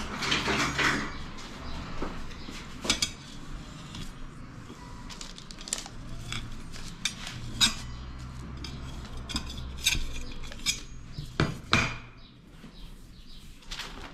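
Pizza cutter wheel run around the rim of a metal pizza pan to trim dough, giving irregular sharp clicks and clinks of metal on metal over a rustle of baking paper.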